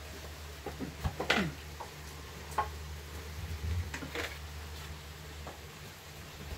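Kitchen items being handled: a few scattered knocks and clinks of containers and utensils, the loudest about a second in, over a steady low hum.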